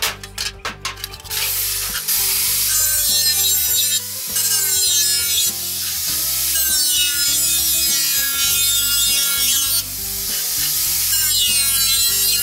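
A few quick hammer blows on a metal disc, then an angle grinder with a cutting disc cutting through the metal plate, its whine sagging and rising as the disc bites and eases off.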